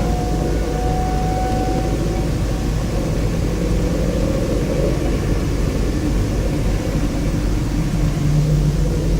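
Loud, steady low rumbling roar without speech: a tornado's roar as a sound effect.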